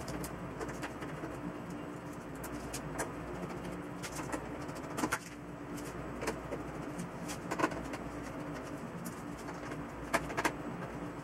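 Scattered light clicks and knocks from handling a partly dismantled LCD TV and its small parts by hand, a handful of times, over a steady background hum.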